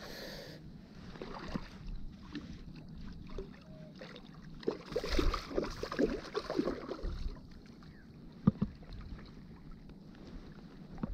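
A hooked trout thrashing in the shallows and in a landing net, with irregular splashes of water that are busiest around the middle, and wind buffeting the microphone.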